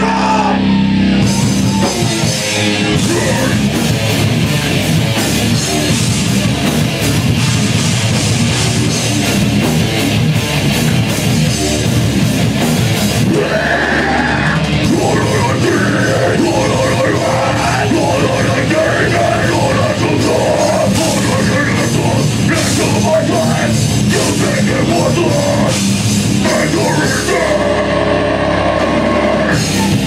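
Live heavy metal band playing loud, heard from within the audience. It opens on held, ringing notes, and the full band with drums comes in about two seconds in. Near the end it settles into held notes again.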